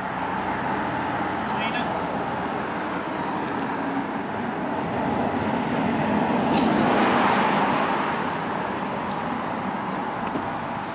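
Street traffic noise, with a car passing that swells and fades about six to eight seconds in.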